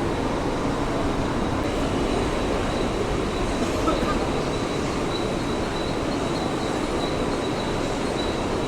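Mumbai suburban electric train running, a steady rumble with a thin high whine that grows stronger about three and a half seconds in.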